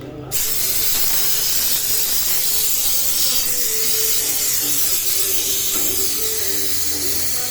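Pressurised gas hissing steadily out of a refrigeration line, starting suddenly just after the start. Music plays faintly underneath.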